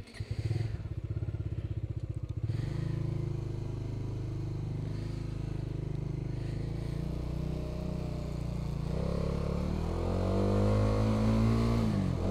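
Motorcycle engine catching and idling with even pulses for a couple of seconds, then pulling away. About nine seconds in the revs climb as the bike accelerates, and they drop again near the end.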